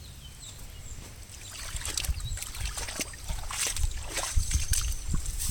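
Irregular splashing and sloshing of shallow floodwater as boots wade through a flooded yard, getting busier about two seconds in, over a low rumble.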